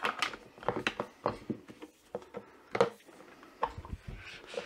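Hard plastic clicks and knocks from a Frizzlife under-sink water filter cartridge and its base being handled and twisted together, about ten short sharp sounds with one louder knock a little past halfway.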